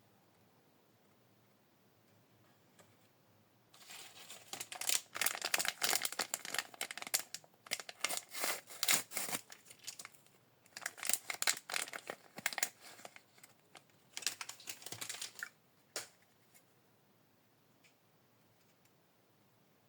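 Thin plastic wrapping crinkling and tearing as a miniature collectible is unwrapped by hand, starting about four seconds in, pausing briefly near the middle, then resuming. A single click follows.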